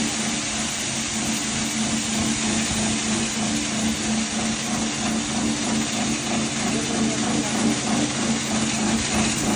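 10 hp electric poultry-feed grinder running steadily under load while grinding maize into meal: a constant mechanical hum with a dense hissing rush over it.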